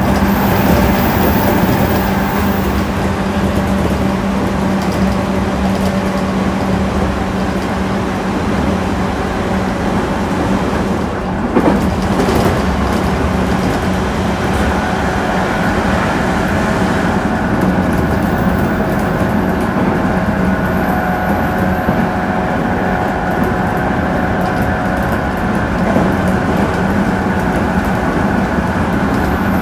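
JR Central 211 series 5000 subseries electric train running, heard from inside a passenger car: a steady loud rumble of wheels and running gear. A low hum fades out in the first third, and a higher steady hum comes in about halfway through.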